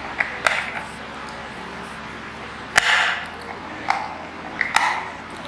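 Sharp clicks and snaps of hands handling rechargeable AA batteries and their plastic pack as the batteries are taken out, about six in all; the loudest snap comes about three seconds in.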